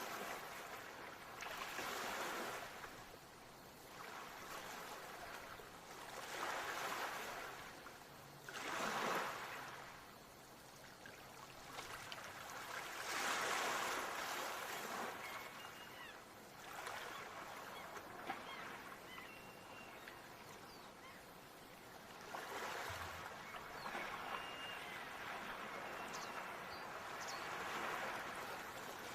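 Ocean surf: waves rushing in and washing back in repeated swells every few seconds, with a few faint short high calls over them.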